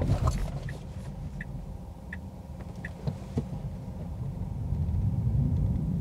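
Low road and cabin rumble inside a Tesla Model 3 rolling to a stop right after a hard braking test, fading and then swelling slightly again. The turn indicator ticks softly a few times, about every 0.7 s.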